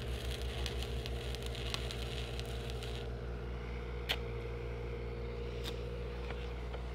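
Stick welding arc of a 3/32" 7018 rod crackling until about three seconds in, when the arc is broken. A mobile rig's engine-driven welder drones steadily underneath, its drone pulsing while the arc burns. Two sharp clicks follow, about four and five and a half seconds in.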